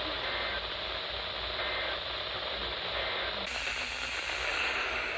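Radio static: a steady rough hiss from a weather radio receiver on a weak signal, with three faint short tones about a second and a half apart. About three and a half seconds in, the hiss changes and turns brighter.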